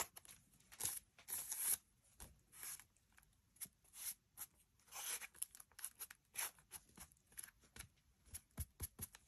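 Faint, irregular paper rustles and soft scrapes with a few light taps as an ink pad is dabbed and rubbed along the edges of paper pieces glued into a journal page.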